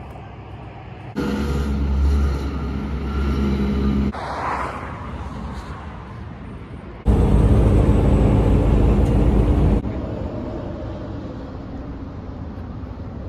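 Diesel lorry engine running, loud in two stretches of about three seconds each that start and stop abruptly, with quieter road noise between them and after.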